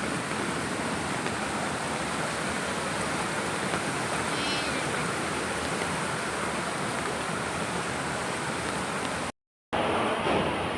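Steady rushing noise of floodwater. It drops out for a moment about nine seconds in, then carries on.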